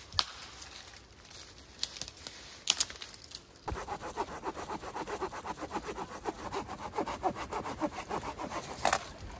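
Hand saw cutting dead wood for firewood, with steady back-and-forth strokes from about four seconds in. A few sharp knocks come before the sawing starts.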